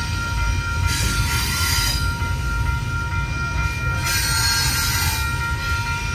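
Double-stack intermodal freight cars rolling past with a steady low rumble, under the continuous ringing of the grade crossing's new electronic bell. The wheels give a hissing screech twice, about a second in and again at about four seconds.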